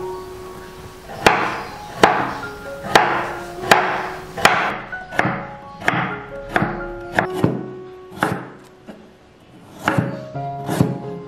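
Chef's knife chopping a carrot into rounds on a wooden cutting board: sharp knocks of the blade hitting the board, about one every three-quarters of a second, then a short pause and a quicker run of cuts near the end. Background music plays throughout.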